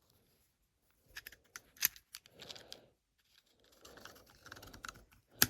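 Small clicks and rustling handling noise from an M&P by Smith & Wesson out-the-front knife being worked in the hand, with one loud sharp click near the end.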